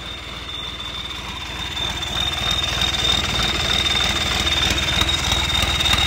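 John Deere tractor's diesel engine idling just after its first start with a newly fitted turbocharger, growing louder over the first two seconds and then running steadily, with a steady high whine throughout.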